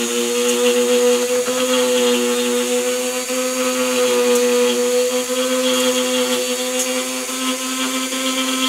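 Dremel rotary tool running at a steady, high pitch, its small round burr pressed into a wood board to cut shallow dents as a texture.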